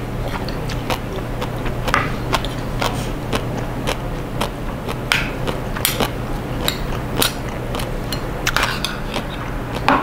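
Metal spoon clinking against a small stainless-steel bowl as someone eats from it: a scatter of short, sharp clinks over a steady low hum.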